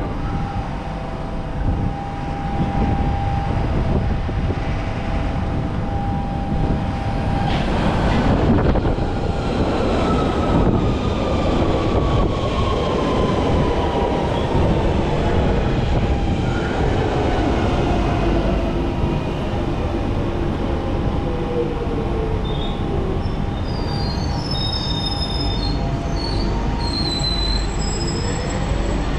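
London Underground Central Line 1992 Stock train running into the platform and slowing, its motor whine falling slowly in pitch over rumbling wheels. High wheel and brake squeals follow as it comes to a stop, and near the end a whine starts to rise again.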